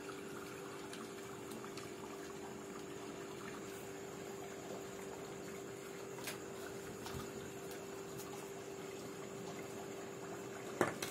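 Steady low hum with a few faint clicks, and a sharper click or knock just before the end.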